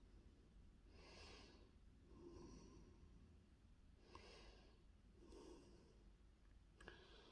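Faint, slow breathing close to the microphone, one soft breath about every second and a half. A small sharp click comes near the end.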